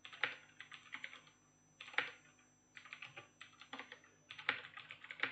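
Computer keyboard typing: quick bursts of keystrokes with short pauses between them, and a few louder single strokes.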